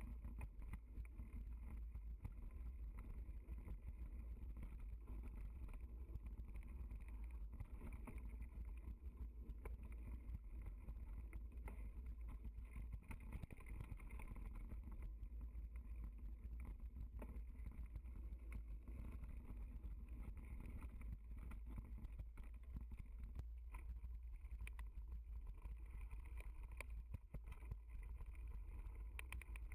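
Mountain bike ridden along a dirt and gravel trail, heard from a bike-mounted camera: a steady low rumble of tyres and wind, with scattered short rattles and knocks from bumps in the trail.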